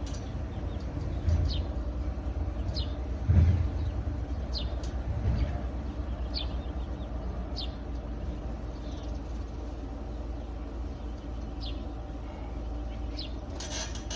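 Small birds chirping, short falling calls every second or so, over a steady low rumble, with a few dull low thumps in the first half.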